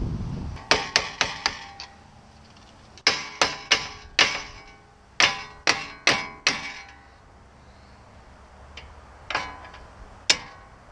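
Sharp metal-on-metal strikes on front brake caliper parts, each with a short ring. They come in three quick runs of about five, then two single strikes near the end.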